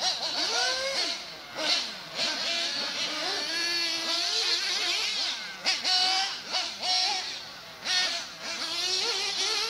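Small two-stroke nitro engines of 1/8-scale RC off-road buggies (a Kyosho Inferno MP9 and a Losi) revving on and off the throttle. Several engines overlap, their high whine rising and falling every second or so.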